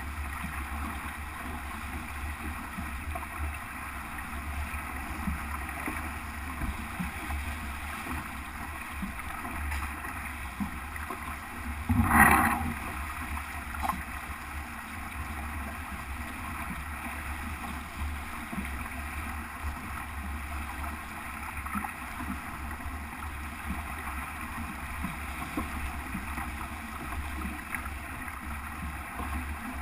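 Sailboat sailing close-hauled: a steady rush of water along the hull, with wind. About twelve seconds in comes one brief, louder rush of about a second.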